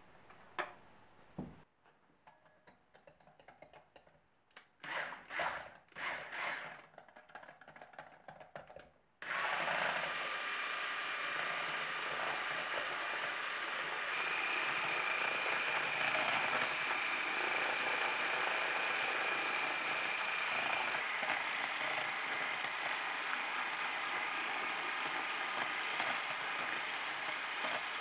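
A few scattered clicks and knocks, then about nine seconds in an electric hand mixer starts and runs steadily, its beaters whisking whole eggs and sugar in a glass bowl.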